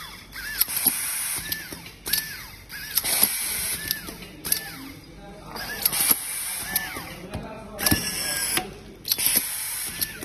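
Handheld automatic screwdriving machine with an air-fed screw supply working in repeated cycles: sharp hisses of compressed air blowing screws down the feed tube, and the electric screwdriver's motor whining up, holding and winding down as it drives each screw into wood, about once a second.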